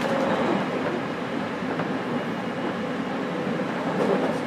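Running noise inside a JR Kyushu 817 series 3000-subseries motor car (MoHa 817-3002, Hitachi IGBT inverter) travelling between stations: a steady rumble of wheels on the rails, with one faint click near the end.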